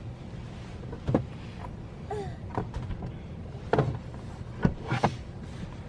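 Low steady rumble inside a car cabin, broken by several sharp knocks and clicks of handling and movement, with a short squeak about two seconds in.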